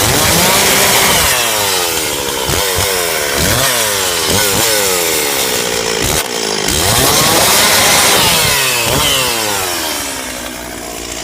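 Chainsaw bucking a felled tree into firewood lengths, its engine revving up and dropping back again and again through the cuts, falling toward idle near the end.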